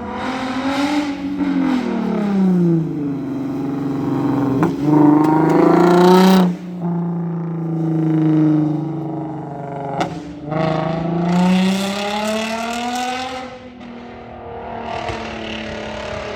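2009 Lexus IS350's 3.5-litre V6 engine and exhaust under acceleration, rising and falling in pitch as it revs through the gears. The sound cuts off sharply about six and a half seconds in, and there are short clicks near five and ten seconds.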